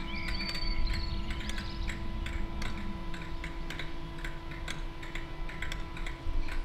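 Steady machine hum with a light, irregular ticking over it, and birds chirping in the first two seconds.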